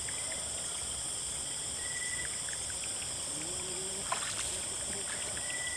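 Steady, high-pitched chorus of night insects with faint trickling water, and a single short click about four seconds in.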